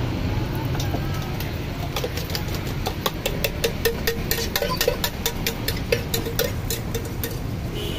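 Quick metallic clinks of a utensil against a metal mug, several a second, from about two seconds in until near the end, as egg-and-vegetable filling is poured from the mug onto a martabak on a hot griddle. Under them runs a steady low rumble of the busy food stall.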